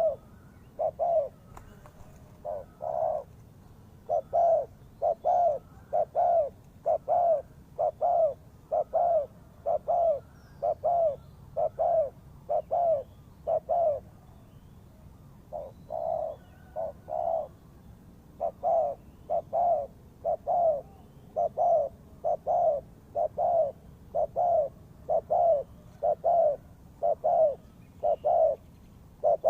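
Spotted dove cooing: a long run of short, low coos, about one to two a second, with a short break about halfway through.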